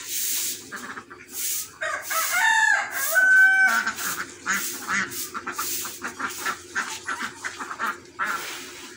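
A rooster crowing once, a call of about two seconds starting about two seconds in and ending on a held higher note. Repeated short hissy noises and a faint steady hum run underneath.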